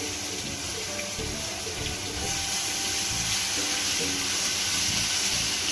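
Ginger-garlic paste sizzling in hot oil in a wok, a steady hiss that gets a little louder about two seconds in.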